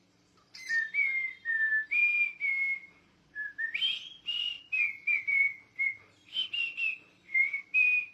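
Pet parrot whistling a string of about a dozen short, clear notes, mostly level in pitch, with one quick upward glide about halfway through.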